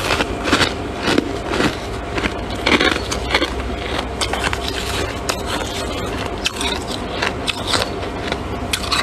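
Close-up crunching and chewing of squeaky freezer frost: many irregular, sharp crunches over a steady low hum.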